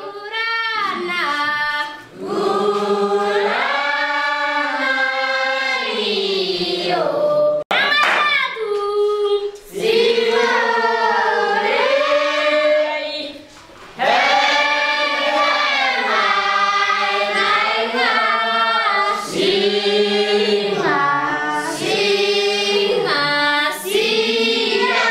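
A group of voices singing together, a choir song sung in long phrases with short breaks between them.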